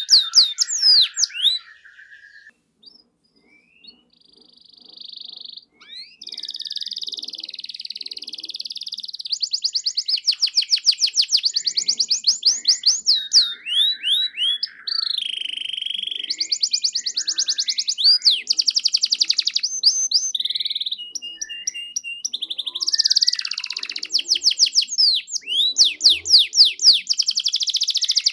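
Domestic canary in full song: rapid high trills and rolls alternating with buzzy held notes, with a brief lull about two seconds in before the song picks up again.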